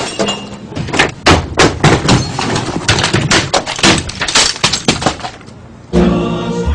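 Office equipment being smashed and knocked over: a fast run of crashes, bangs and breaking glass that dies away about five seconds in. The commercial's jingle music starts just before the end.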